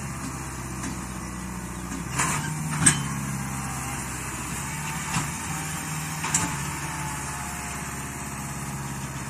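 Kubota tractor's diesel engine running steadily while hitched to a trailer loaded with about 13 tons of sugarcane. Four short, sharp knocks break in, the loudest about three seconds in.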